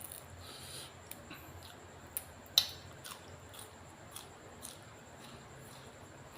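Quiet eating sounds: chewing with scattered small clicks and one sharper click about two and a half seconds in.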